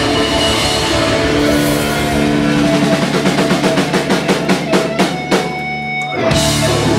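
A live punk rock band holds a loud ringing chord on electric guitars and bass while the drummer plays a run of rapid drum hits. It ends on a big crash about six seconds in, closing out the song.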